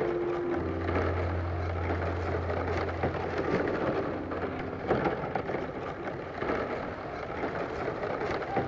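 Thin bamboo strips rustling and clicking against each other as they are woven by hand into a basket, with a low steady hum for the first few seconds.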